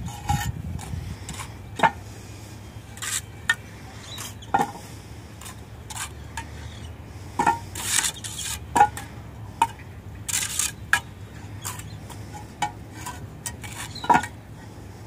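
Block laying: steel masonry trowels clinking and scraping against concrete blocks and mortar, with irregular sharp taps and knocks as blocks are set and tapped into place.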